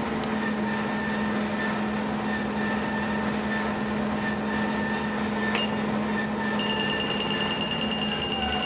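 Treadmill running with a steady motor hum and whine, a single click about five and a half seconds in. A continuous high-pitched beep starts about two-thirds of the way through and the motor's pitch begins to fall near the end.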